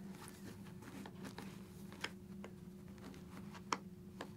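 Faint handling noise of a motorcycle helmet's cheek pad being worked loose: a few small clicks, the loudest about three-quarters of the way in, over a steady low hum.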